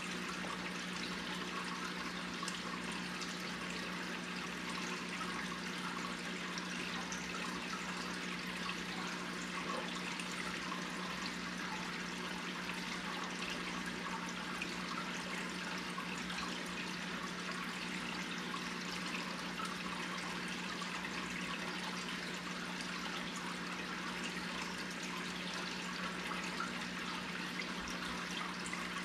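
Aquarium water bubbling and trickling steadily, with a constant low hum from the tank's pump.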